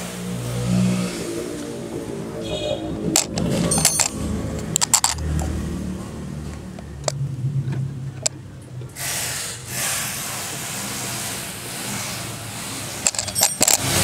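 A vehicle engine running, with sharp metallic clinks and knocks scattered through.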